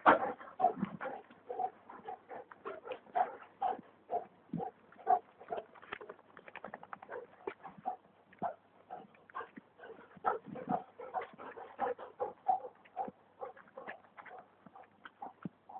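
Dogs grunting and breathing hard in quick, irregular short bursts, several a second, as they run and play.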